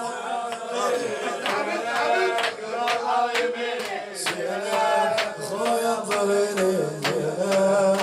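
Male voices chanting a Shia shoor latmiyya, a mourning chant, over steady rhythmic beats about twice a second, typical of mourners striking their chests in time.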